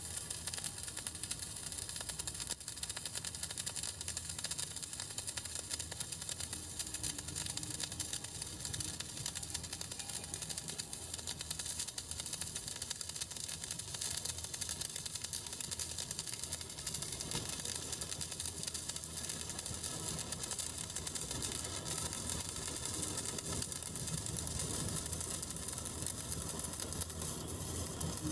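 CO2 MIG welding arc crackling steadily and without a break as the first (root) pass of a vertical-up weld is run.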